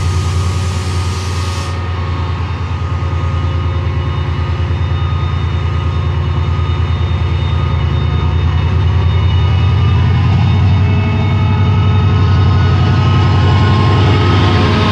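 Class 68 diesel locomotive's Caterpillar V16 engine running with a steady low throb as it draws slowly along the platform. It grows louder as the locomotive comes close and passes in the second half. A brief hiss sounds over it in the first two seconds.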